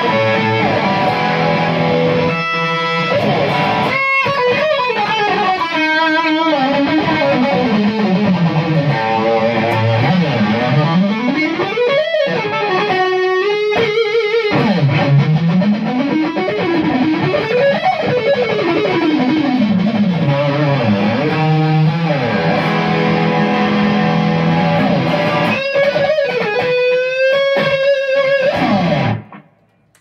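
1986 Kramer electric guitar played with distortion: fast shred runs and tapped arpeggios, broken up by repeated long whammy-bar dives and rises that swoop the pitch down and back up. The playing cuts off abruptly near the end.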